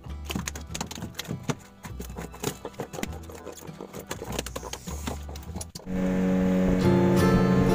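A freshly caught fish flapping in the bottom of a wooden boat, a fast irregular run of slaps and knocks against the hull. About six seconds in, gentle acoustic guitar music starts and takes over.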